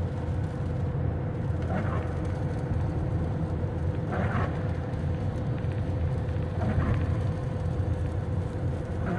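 Inside a car at highway speed on wet pavement: a steady low road and tyre rumble, with the windshield wipers swishing across the glass about every two and a half seconds.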